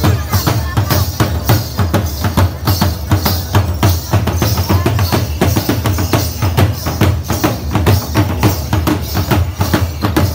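Several dhol drums beaten together in the fast Qalandari dhamal rhythm, a dense, driving stream of deep booming strokes.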